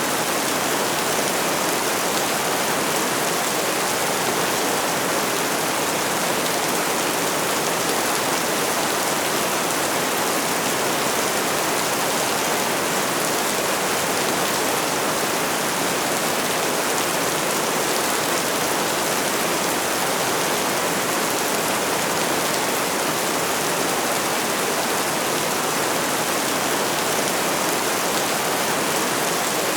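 Steady, heavy rainfall: an even, unbroken hiss of rain with no single drips or thunder standing out.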